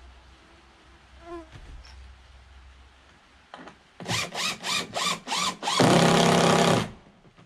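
Cordless drill run in five short trigger pulses, each spinning up and winding down, then held for about a second, driving a screw into the ramp wood.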